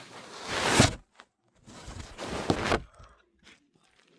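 Crinkly plastic blind-bag packaging rustling and crackling as it is handled, in two bursts of about a second each.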